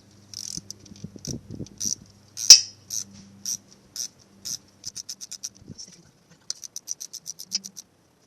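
Ratcheting 10 mm wrench clicking as it is worked back and forth on a motorcycle battery terminal bolt. It starts at about two clicks a second and ends in a fast run of clicks, with one sharp metal knock about two and a half seconds in.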